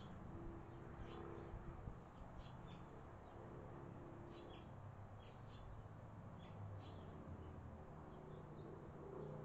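Faint, short high chirps from barn swallow nestlings, scattered irregularly, over a low steady hum.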